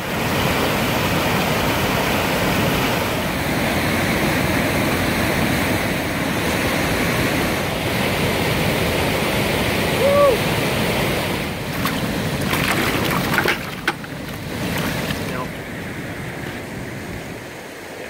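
Rushing whitewater of a stream's rapids: a steady loud rush of water that drops in level about 14 seconds in.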